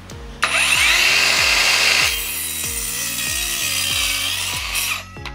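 Akaido AKCS125BL 21V cordless 5-inch circular saw starting up about half a second in and crosscutting a pine 2x4, loudest for the first second and a half, then cutting on a little quieter until it shuts off near the end. Held straight, the saw goes through without straining.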